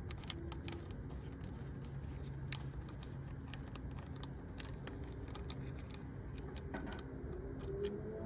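Scattered light clicks and small metallic rattles of parts and hand tools being handled, over a steady low hum.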